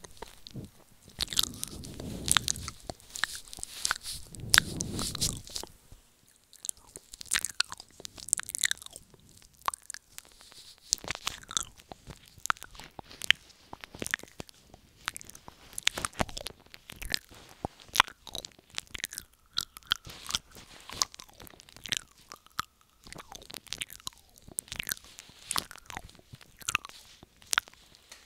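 Close-miked wet mouth sounds made right at the microphone: irregular clicks, smacks and licking noises in quick succession. They are denser and fuller in the first five seconds, then come as sparser, sharper clicks.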